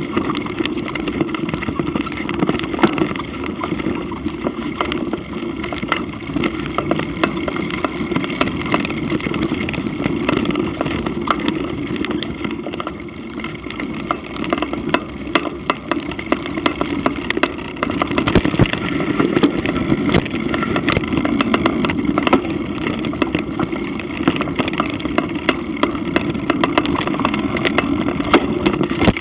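Mountain bike ridden over a dirt singletrack: a steady rush of tyre and wind noise, with frequent sharp clatters and knocks as the bike rattles over rough ground.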